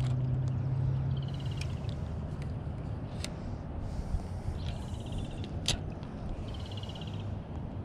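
A bird calls three times in short runs of fast repeated high notes. Between the calls come a few sharp clicks, and a low steady hum fades out in the first second and a half.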